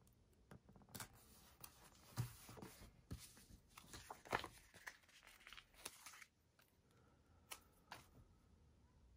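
Faint paper handling: stickers peeled from their backing sheet and pressed down onto a planner page, a string of short crackles and taps that is busiest in the middle and thins out near the end.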